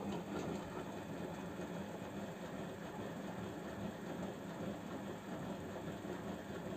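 Samsung WF0800NCE front-loading washing machine turning its drum during the drum clean cycle: a steady motor hum under a churning noise, in one spell of tumbling.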